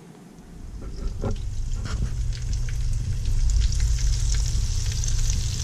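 Flour-dredged steak strips frying in hot oil in an electric deep skillet: sizzling and crackling that starts about half a second in and grows louder as more strips are laid in, with a few sharp pops.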